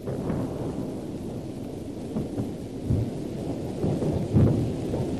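Continuous low rumble with crackle on an old film soundtrack, swelling louder about three seconds in and again about four and a half seconds in.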